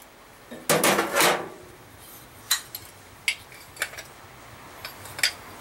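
Hard objects being handled and rummaged through in a tackle box: a short clattering rattle about a second in, then several sharp, separate clinks.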